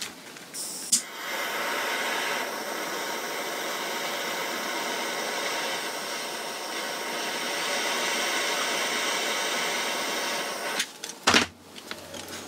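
A small cordless heat gun switching on with a click, blowing steadily for about ten seconds while it heats a solder joint, then cutting off, followed by a few sharp knocks as it is set down.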